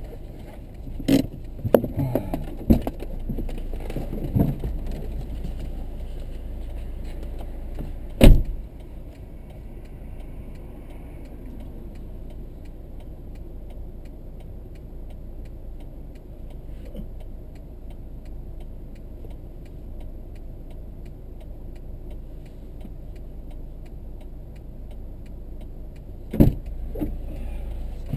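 A car door is opened and shut by someone getting out of a stopped car: a few clicks and rustles, then a loud thump about eight seconds in. A steady low hum of the stationary car follows, and the door thumps again near the end.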